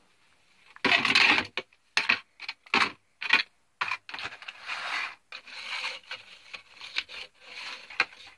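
A cardboard box and a clear plastic packaging tray being handled and slid across a shelf: a loud scuffing burst about a second in, a few short knocks, then a longer run of rubbing and scraping.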